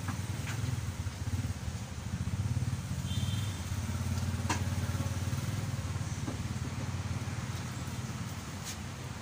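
Bajaj RE auto-rickshaw's single-cylinder engine running while under way, heard from inside the passenger cab as a steady low drone that grows a little louder about two seconds in.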